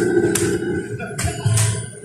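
Electronic bingo gaming machine playing its game music, a steady electronic tone cut by several short sharp sound effects.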